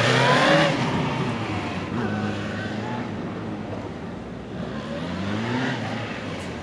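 Police motorcycle engine revving up and down in short throttle bursts through a tight, low-speed cone slalom. It is loudest in the first second, with a rising rev about five seconds in.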